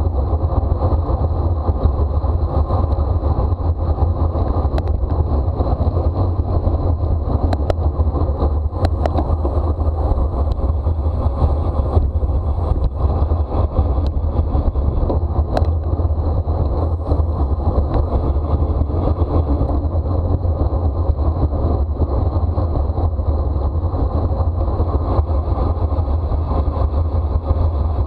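Steady wind rushing over the microphone of a bicycle-mounted camera at racing speed, heavy and low, with a few sharp clicks in the middle.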